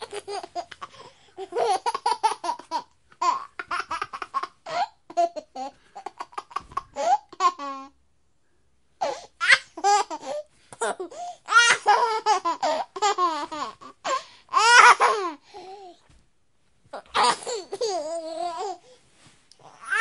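A baby laughing in repeated bursts of high-pitched laughter, with two short pauses about eight and sixteen seconds in.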